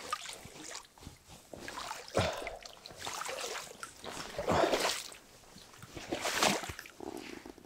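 Wading steps in waders through shallow water and reeds, splashing and sloshing in irregular surges, three of them loudest, while an inflatable boat is towed along.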